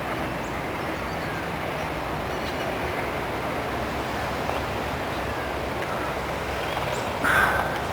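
1926 Morris Cowley rolling chassis running steadily under way, its four-cylinder side-valve engine heard with general road and wind noise. A short, louder sound breaks in near the end.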